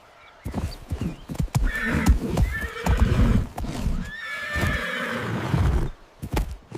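Hooves of a moving herd knocking and thudding on the ground, with whinnying calls twice, about two seconds in and again near five seconds.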